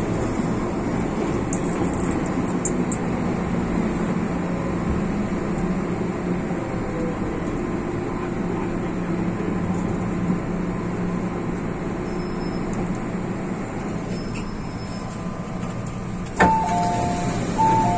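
MTR Tsuen Wan Line M-Train running, a steady rumble of wheels and traction motors with a few held tones, easing slightly in level. Near the end a click is followed by a two-note chime, heard twice.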